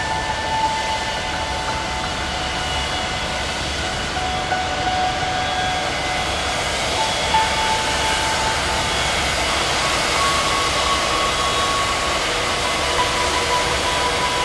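MTO Sport gyrocopter's engine and pusher propeller running steadily under a constant rush of wind during takeoff and climb-out.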